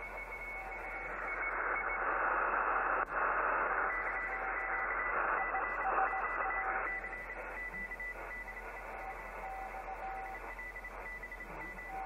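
Radio receiver's audio playing a strange signal: a hiss of static that swells for several seconds in the middle, with faint steady whistles at two pitches that break on and off.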